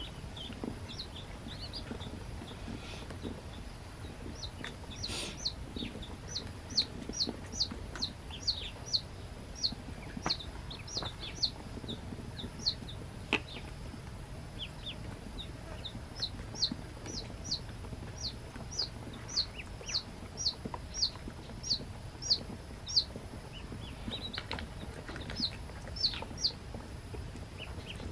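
Newly hatched ducklings peeping: short, high calls that fall in pitch, about two a second, in runs with a brief lull partway through, over a steady low background hum.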